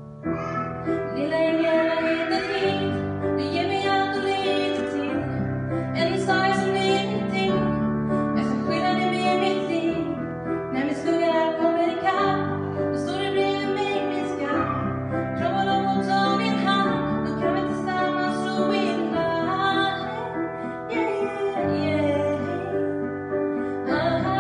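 A woman singing a slow, tender song while accompanying herself on a keyboard, its low sustained chords changing about every one to two seconds under the melody.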